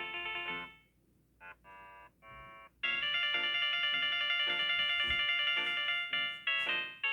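Samsung Galaxy Note 9 ringtones playing one after another. One melody fades out about a second in, three short soft tones follow, and a new, louder chiming ringtone melody starts about three seconds in.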